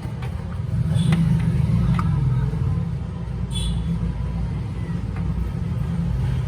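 A steady low rumble, with a few light clicks scattered through it.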